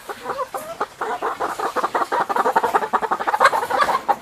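Laying hens clucking in a dense, rapid chatter that builds and grows louder from about a second in, as the flock feeds on black soldier fly larvae mixed into their feed.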